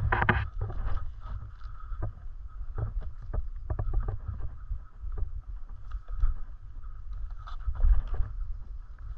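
Mountain bike rolling down a dirt singletrack: wind rumbling on the microphone, with frequent clicks, knocks and rattles as the bike runs over the uneven trail.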